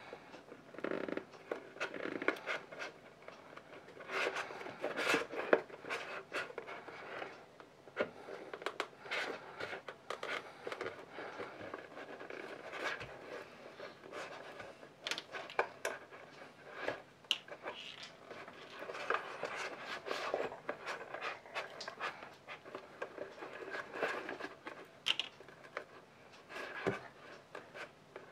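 Hand work on leather: irregular scratching and rubbing with many scattered light clicks and taps.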